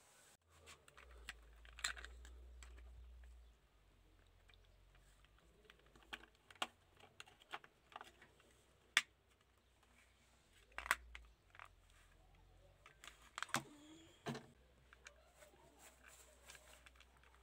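Faint, scattered clicks and taps of a Welly diecast Volkswagen Golf Mk1 model car being handled and turned over on a table, its metal and plastic parts knocking, with a low rumble for a couple of seconds near the start.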